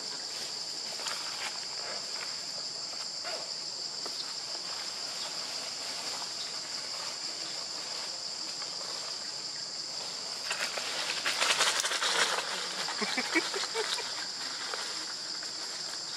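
A steady, high insect drone on two even pitches. Dry fallen leaves crackle and rustle for about three seconds past the middle, as a macaque moves in the leaf litter.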